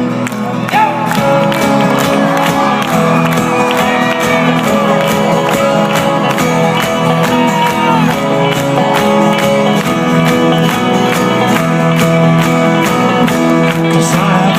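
Live folk-rock band playing an instrumental passage: sustained chords over a steady driving beat, with a crowd shouting and cheering over the music.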